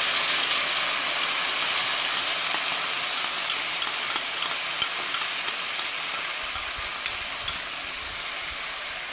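Chicken pieces frying in hot vegetable oil in a non-stick pan, sizzling after a dark sauce is poured over them, with scattered small pops. The sizzle fades gradually as the sauce cools the oil.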